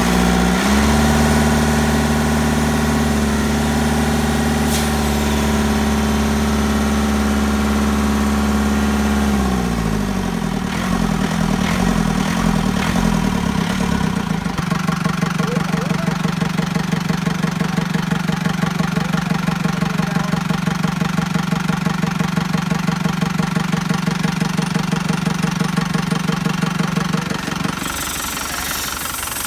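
Yanmar US45 tractor's diesel engine running at a steady fast speed; about ten seconds in the revs drop, and it settles into a slower idle with a rapid, even pulse. The engine keeps blowing white smoke without burning oil, which the mechanic puts down to stuck piston rings among other faults.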